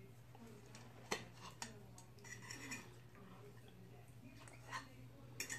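Quiet room with a steady low hum and a few faint clicks of a fork against a plate as food is picked up.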